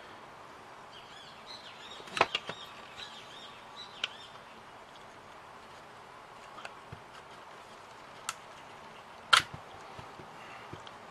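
Sharp clicks and knocks of 3 mm laser-cut MDF model parts being pressed into place and handled on a work table: a short cluster of knocks about two seconds in, single clicks later, and the loudest knock near the end.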